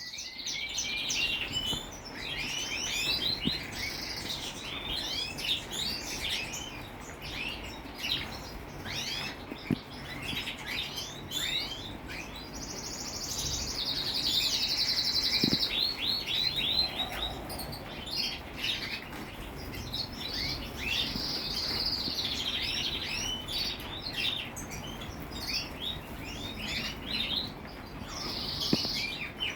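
A flock of small birds chirping continuously, many quick calls overlapping, with a few short rapid trills.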